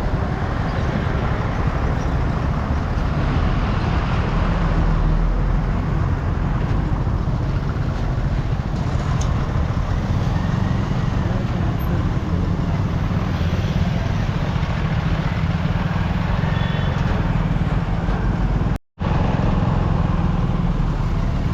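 Steady road-vehicle noise with a heavy low rumble, cutting out for a split second near the end.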